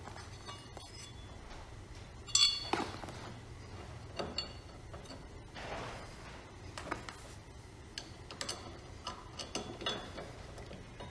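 Small metal hardware and hand tools clinking and clicking as they are handled: a scattered run of short clinks, some with a brief metallic ring, the loudest about two seconds in.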